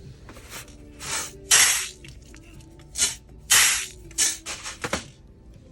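Balloons popping one after another: about seven loud pops, the loudest about one and a half and three and a half seconds in, with a quick run of smaller pops near the end. Faint music plays underneath.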